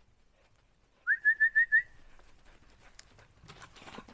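A person whistling a quick run of five short, rising notes about a second in. Footsteps begin faintly near the end.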